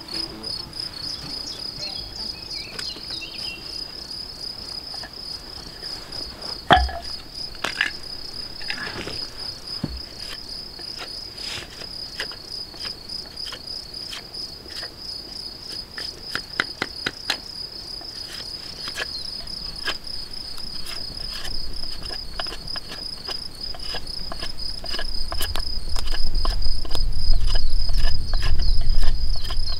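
Insects trilling steadily in the grass, a continuous fast-pulsing high chirp, with scattered light clicks and knocks, the sharpest one about a quarter of the way in. A low rumble builds over the last few seconds.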